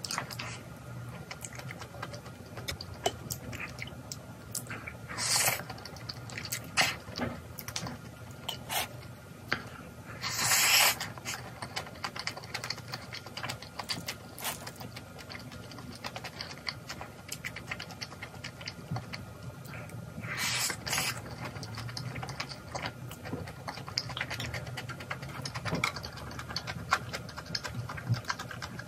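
Close-up eating sounds: chewing, with frequent small clicks of chopsticks and a wooden spoon against a stainless steel bowl and the spoon scraping as it stirs bibimbap. Three louder noisy bursts, each under a second, come about five, ten and twenty seconds in.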